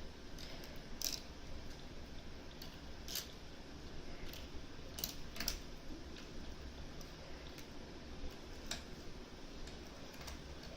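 Scattered small metallic clicks and ticks from picking tools working inside a Mosler M5700 safe deposit box lock, irregularly spaced, about a dozen in all.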